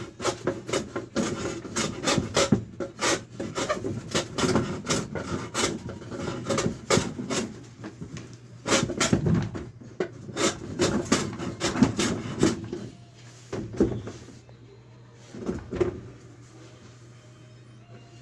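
Hand carpentry on wood: a quick, irregular run of sharp knocks and scraping strokes, then a few duller thuds in the second half before the work goes quieter.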